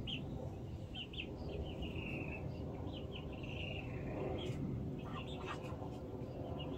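Steady, distant rumble of a Boeing 737-800's CFM56 jet engines as the airliner passes high overhead, with small birds chirping in short clusters and brief trills over it.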